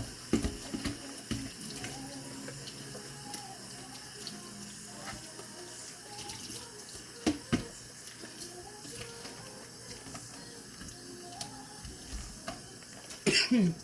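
Tap water running steadily into a kitchen sink, with a few knocks and clinks of utensils and a louder clatter near the end.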